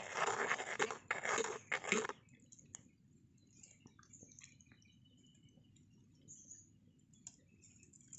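A stick stirring frothing milk payasam in a miniature clay pot, scraping and sloshing for about the first two seconds. After that only faint scattered ticks and pops are heard.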